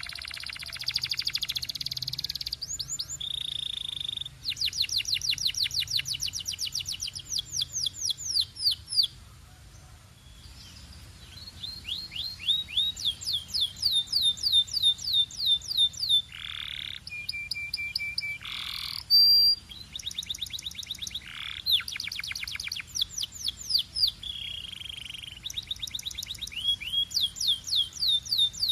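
Canary singing: long runs of rapid repeated notes and fast trills, broken by a few short held whistles, with a pause of about two seconds a little before halfway.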